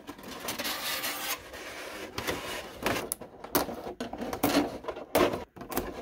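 Clear plastic blister packaging crinkling and scraping as it is pulled out of a cardboard figure box, an irregular rustle broken by several sharper crackles.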